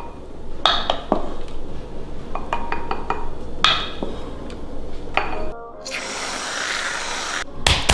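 Background music, with a wooden spoon scraping and clinking against glass as thick frozen dessert is scooped from a blender jug into a glass bowl. About six seconds in comes a hiss of about a second and a half: almond-milk whipped cream sprayed from an aerosol can.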